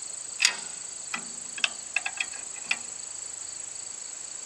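Sharp metal clinks from the steel parking-stand leg and pin of a tractor's front-end loader being set by hand: about six clinks with a short ring, the first the loudest, over a steady high insect drone.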